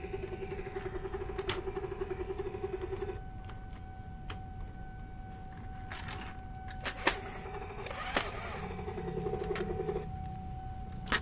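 Vintage Matchbox toy helicopter's battery-powered sound effect: a pulsing buzz that stops about three seconds in and comes back for a few seconds near the end. Sharp plastic clicks come from the toy being handled.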